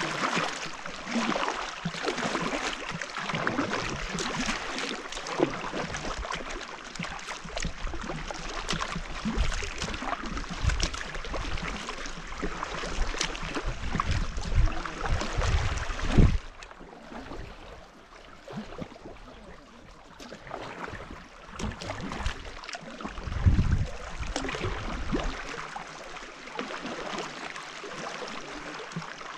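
Kayak paddle strokes: the paddle blades dipping and splashing in lake water, with water dripping off the blades and lapping at the hull. The splashing eases for a stretch in the middle, and there are a few bursts of low rumble.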